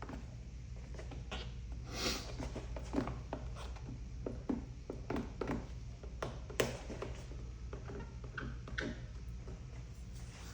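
Plastic squeegee stroking and squeaking over wet paint protection film on a car mirror, a run of short scrapes and light clicks, over a steady low hum.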